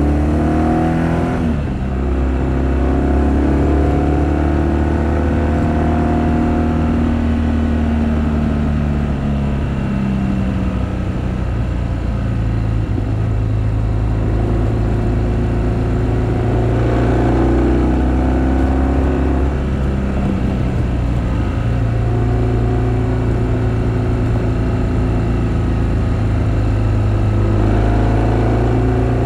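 BMW R1200GS boxer-twin engine running under way. It revs up and drops pitch at a gear change about a second and a half in, then runs steadily, with the pitch rising and falling again as the throttle is opened and closed.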